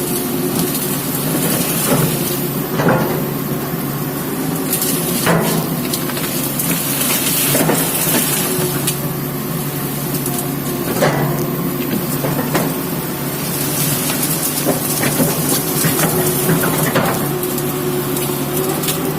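Komatsu excavator's diesel engine running steadily under work, with several sharp knocks and cracks scattered through it.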